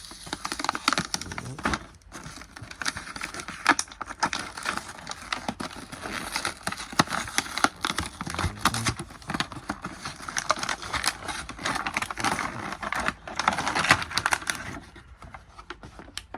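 Plastic blister packaging and cardboard being handled and opened, with continual crinkling, crackling and sharp clicks that stop about a second before the end.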